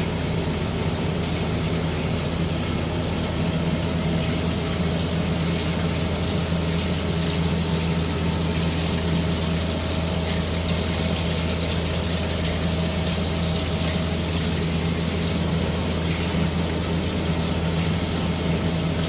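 CNC deep-hole drilling machine running: a steady low hum with an even rushing noise over it, unchanging throughout.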